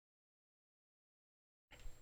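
Near silence, with a brief faint rustle or knock near the end.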